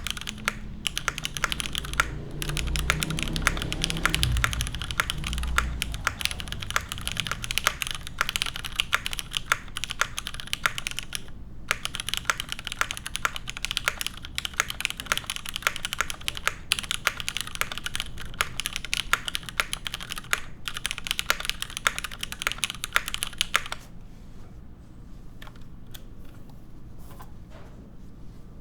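Continuous fast typing on a gasket-mounted custom mechanical keyboard with lubed Cherry Hyperglide Black linear switches and GMK keycaps: a dense stream of keystroke clacks. There is a brief pause about 11 seconds in, and the typing is softer over the last few seconds.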